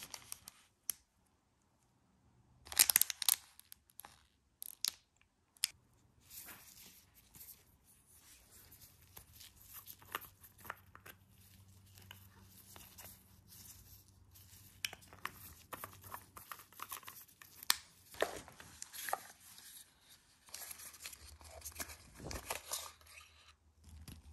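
Plastic packaging crinkling and tearing as small nail supplies in cellophane bags are unwrapped and handled, in uneven rustles with sharp clicks and a brief silent gap near the start.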